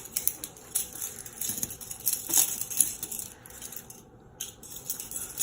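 Metal handcuffs clinking and jingling as they are handled, a scatter of light, irregular metallic clicks.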